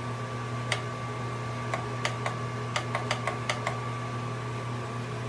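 Steady low hum of a small plug-in space heater running, with a single sharp click a little under a second in, then a quick run of about ten clicks over the next two seconds.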